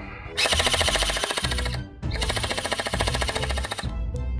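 SKD CS-007 electric gel blaster firing in two rapid bursts, each about a second and a half long, with a short pause between them, over background music.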